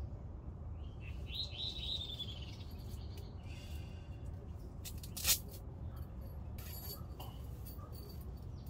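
A bird calls a quick run of about four falling notes about a second in, over a low steady rumble. A single sharp click, the loudest sound, comes a little past the middle.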